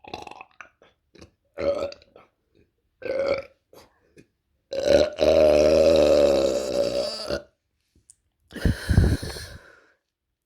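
A woman burping: several short belches, then one long, drawn-out belch of nearly three seconds, and a rougher, deeper belch near the end.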